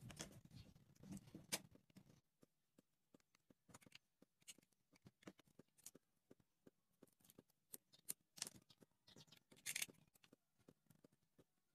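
Faint clicks, taps and scrapes of a wooden popsicle stick being handled on a plywood board and cut with a snap-off utility knife, with two louder scrapes of the blade near the end.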